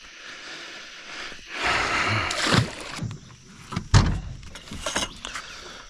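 Water splashing as a catfish goes back into the river, then about four seconds in a single sharp, loud knock against the aluminium boat.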